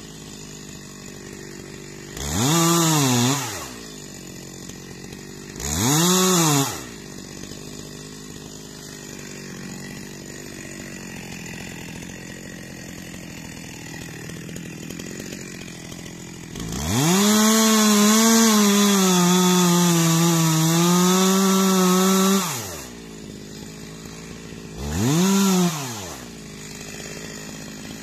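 Petrol chainsaw idling, its throttle blipped briefly three times. About two-thirds of the way through it is held at high revs for about six seconds, the pitch wavering a little, before dropping back to idle.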